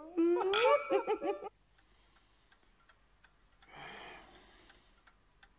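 A short burst of a man and a woman laughing, then a clock ticking steadily. A long breathy sigh comes about four seconds in.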